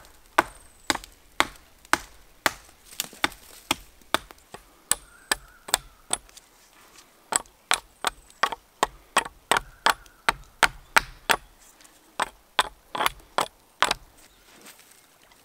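A run of sharp, evenly paced blows, roughly two to three a second, as of a hand tool striking repeatedly. The blows pause briefly about six seconds in and again near eleven seconds, then carry on.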